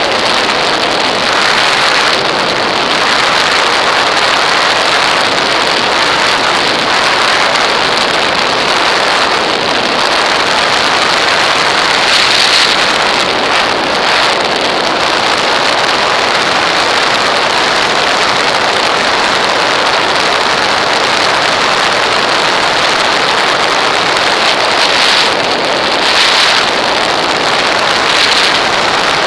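Steady rushing noise of airflow over a wing-mounted camera in flight, swelling briefly a few times, with no clear engine tone.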